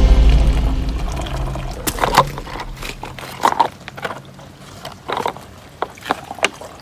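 Background music fading out over about the first second, then rain falling, with scattered sharp taps at irregular intervals.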